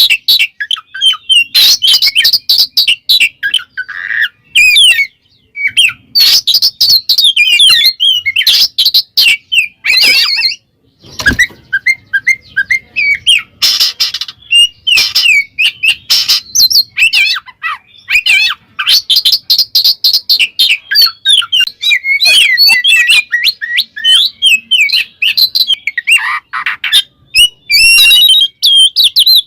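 Oriental magpie-robin (kacer) in full territorial song: a fast, unbroken run of varied whistled phrases and trills with scratchy, harsh notes mixed in, the song used to call out a rival male.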